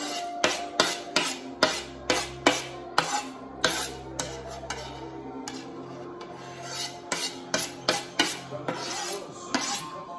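Quick, regular knife strokes on a cutting board, about two or three a second.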